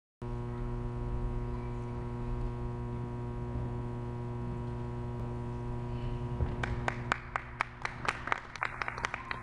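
Steady electrical hum with many overtones, fading after about seven seconds. From about six and a half seconds in, hand clapping starts, about four claps a second.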